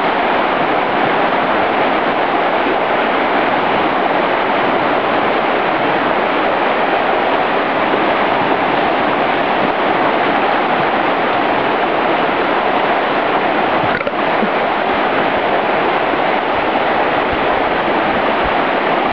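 Fast mountain river running over rapids: a steady, even rush of white water.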